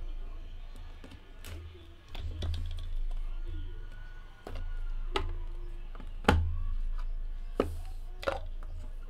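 Hands handling small cardboard trading-card boxes and setting them down on a tabletop: a string of about seven light knocks and taps, the sharpest about six seconds in.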